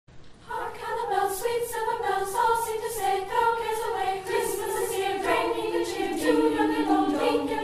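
A choir singing in harmony, several voices moving from note to note, starting just after a brief gap.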